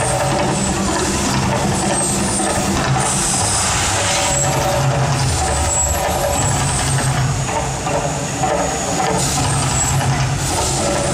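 The Mirage volcano attraction erupting: a loud, continuous low rumble with the hissing whoosh of gas flame jets and water plumes.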